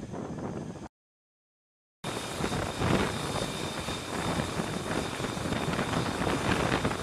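Wind noise for about a second, then a second of dead silence at an edit. Then an F-35C Lightning II's F135 turbofan runs close by: a loud rushing noise with a steady high whine over it.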